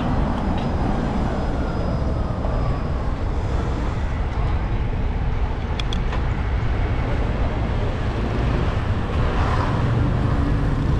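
City road traffic: cars driving along a multi-lane avenue, a steady low rumble of engines and tyres.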